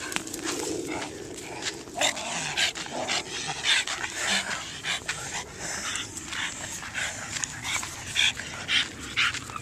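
Dogs panting hard and now and then whimpering, with short irregular rustling and crunching noises a few times a second; the dogs are tired near the end of a long walk.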